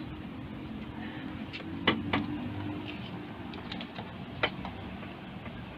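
Sharp clicks and taps of a hand on a truck cab's door and plastic step panels: two close together about two seconds in and another near four and a half seconds, over a steady low hum.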